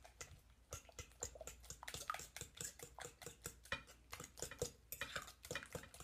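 A utensil stirring wet banana batter in a glass mixing bowl: faint, irregular clicks and scrapes against the glass, several a second.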